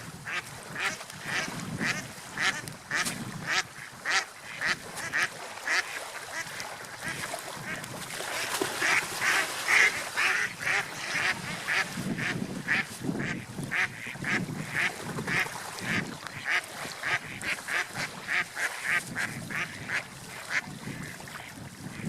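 Ducks quacking in a quick, steady series of short calls, about two or three a second, loudest about halfway through, over a steady background noise.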